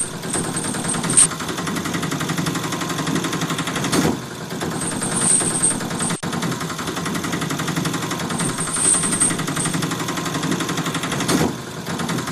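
Truck engine running with a rapid, steady rattle, with short high hisses a few times.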